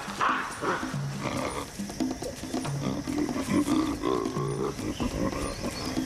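Savanna baboons fighting, giving harsh calls in irregular bursts over background music with a repeated low note.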